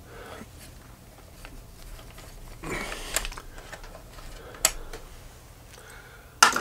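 A hand screwdriver undoing the small screws that hold a motorcycle headlight shell, with light scratchy rattling and metal clicks. A sharp click comes about four and a half seconds in and a louder one near the end.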